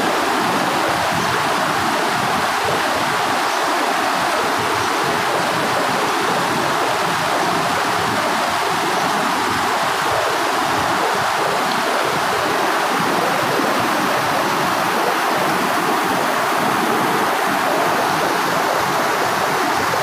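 A rocky hill stream rushing over and between boulders: a steady, unbroken rush of water.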